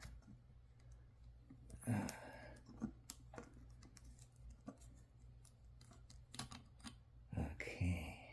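Scattered light clicks and taps of small ceiling-fan mounting parts being handled and unfastened, over a low steady hum.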